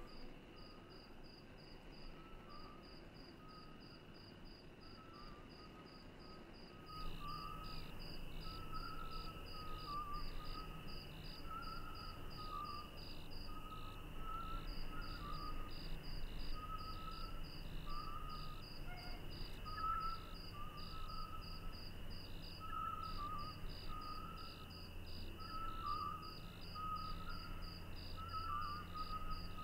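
Crickets chirping in an even rhythm, about two chirps a second. About seven seconds in, the ambience steps up: a second cricket joins in and a low rumble comes in underneath, with faint wavering tones coming and going.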